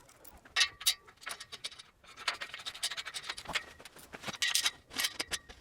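Irregular metallic clicks and scraping as M8x16 screws with washers are fitted and hand-threaded into the kayak rack's frame.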